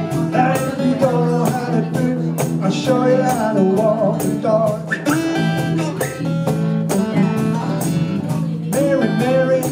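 Small live band playing an instrumental break: strummed acoustic guitar, an electric guitar lead line with bent notes, and a steady cajón beat.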